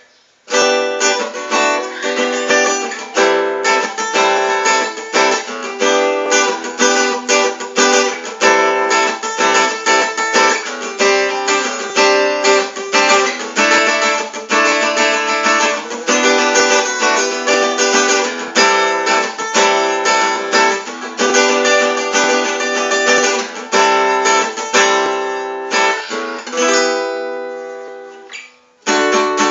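Giannini GF-4 CEQ jumbo acoustic guitar strummed in a steady rhythm of chords. About 27 seconds in, the playing pauses on one chord that rings out and fades, then the strumming starts again right at the end.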